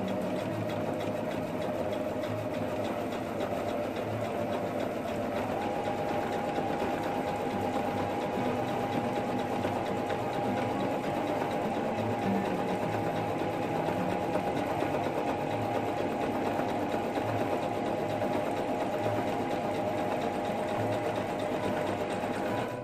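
Electric household sewing machine running steadily, zigzag-stitching two pieces of leather together. A slightly higher steady tone joins the motor hum about five seconds in.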